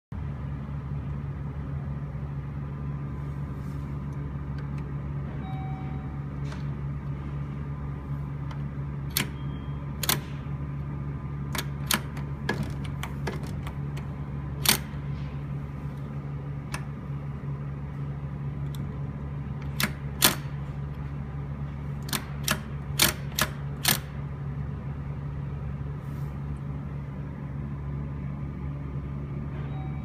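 Elevator hoistway door interlock giving a dozen or so sharp, irregular clicks, some in quick pairs and clusters, from about nine seconds in to about twenty-four seconds, over a steady low hum. The interlock is hanging instead of locking properly.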